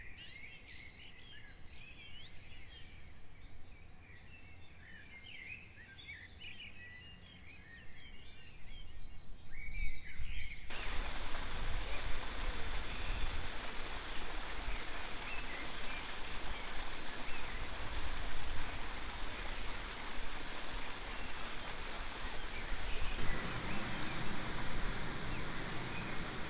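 Birds chirping over a quiet background. About ten seconds in, this cuts abruptly to the steady rush of a small waterfall splashing over rocks.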